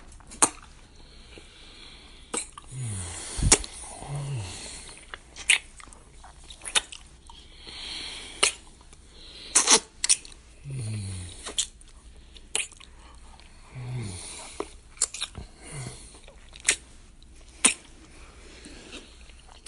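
Kissing: repeated wet lip smacks at an irregular pace, with breathing and short low falling hums between them.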